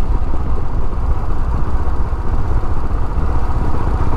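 Motorcycle engine running under way, mixed with a steady rumble of wind on the microphone while riding.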